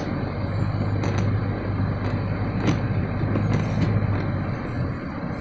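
Steady low hum and rumble of a vehicle running, easing slightly near the end, with a few light clicks.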